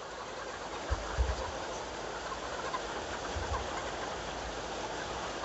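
A dense, steady chorus of many young chickens peeping and chirping together in a poultry house, with a few low bumps about a second in and again past the middle.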